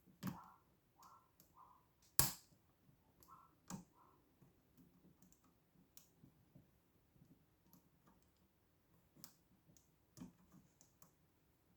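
Faint, irregular clicks and taps of lockpicking tools working in a pin-tumbler lock, with the sharpest click about two seconds in.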